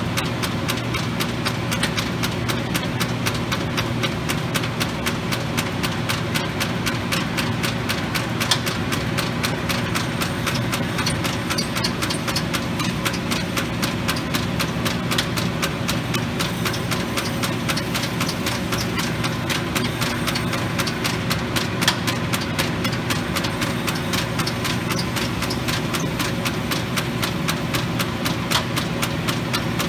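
1943 Arter A3-16 rotary surface grinder running and grinding parts on its rotating chuck: a steady hum from the 10 hp spindle motor and its belt and gear drive, with a fast, regular ticking.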